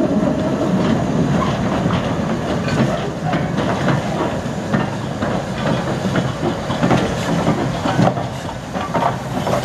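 Class 7F 2-8-0 steam locomotive 53808 running slowly past at close range, its wheels and motion clanking irregularly on the track.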